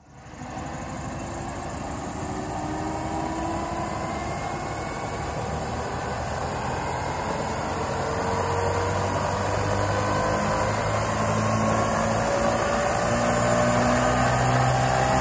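All-electric prototype Mosquito ultralight helicopter spooling up: the electric drive's whine climbs slowly and steadily in pitch over the rotor noise, growing louder throughout, with a low hum joining about halfway in.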